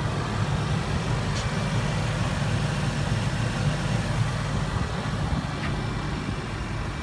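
A vehicle engine idling steadily: a low, even hum.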